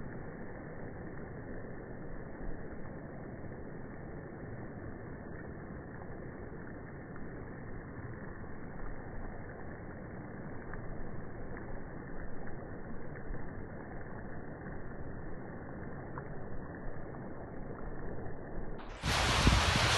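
Baltic Sea water washing steadily, heard dull and muffled with no hiss.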